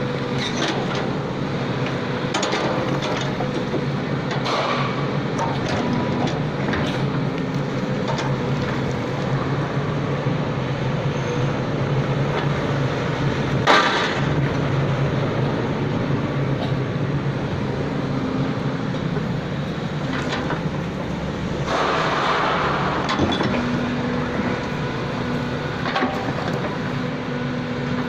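Excavator's diesel engine running steadily, with scattered metallic clanks and knocks; the loudest knock falls about halfway through.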